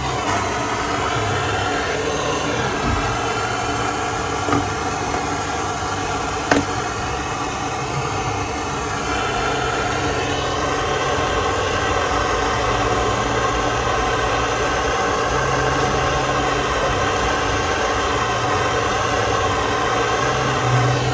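A small motor running steadily, its tone shifting about ten seconds in, with one sharp click about six and a half seconds in.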